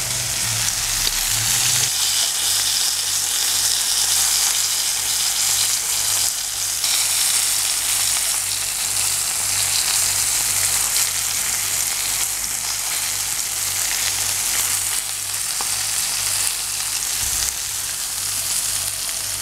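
Floured sardines frying in hot oil, a steady sizzle throughout.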